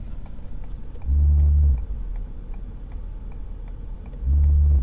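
Two short bursts of a low, steady electric pump motor hum on a plow truck, each under a second and switching on and off abruptly, about three seconds apart.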